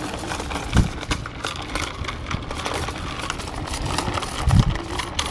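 Small child's bicycle with training wheels rattling and clicking metallically as it rolls over asphalt, with a couple of low thumps, one about a second in and one near the end.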